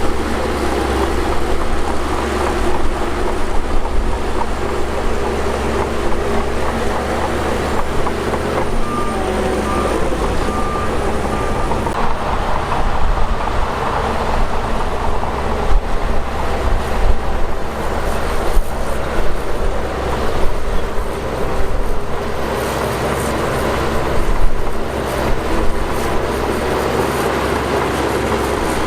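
Shantui DH17 crawler bulldozer running steadily while pushing dirt, its diesel engine humming low under many irregular clanks and knocks from the tracks and blade. A short run of beeps comes about nine seconds in.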